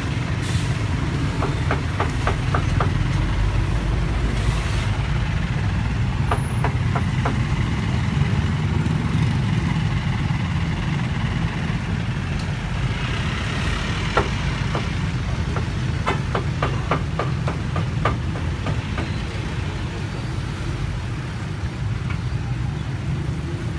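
Meat cleaver chopping roast poultry on a wooden chopping block in quick runs of sharp strikes, about five a second, several times over. Under it, the steady low rumble of motorbike and road traffic.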